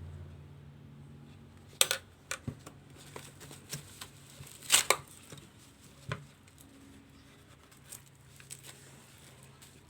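Handling noises: a few sharp clicks and short rustles, loudest about two and five seconds in, over a faint steady low hum.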